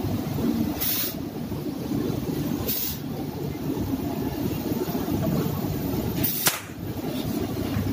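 Gas torch flame burning with a steady rush as it heats a washing machine's bearing housing red-hot to expand it and free the bearing. Three short hisses break in, the last followed by a sharp click about six and a half seconds in.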